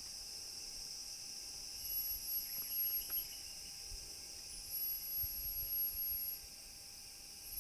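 Rainforest insects calling: a steady high-pitched drone, with a still higher, shrill call that starts and stops in spells of a second or two, about every three seconds.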